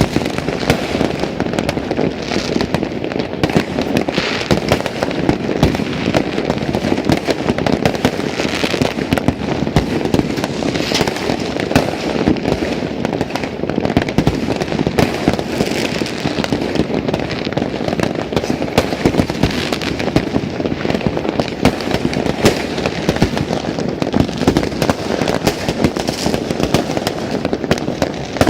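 Dense, continuous barrage of fireworks and firecrackers going off all around, countless overlapping bangs and crackles with no pause.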